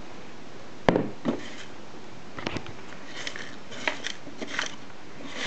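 Hard kitchen items being handled while a blender is set up for grinding crushed eggshells: one sharp knock about a second in, a second knock just after, then a few light clicks and rattles. The blender is not running.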